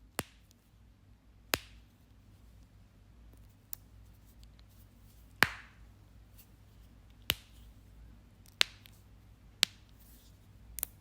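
Knuckles cracking: about eight sharp, separate pops spaced one to two seconds apart, the loudest about halfway through.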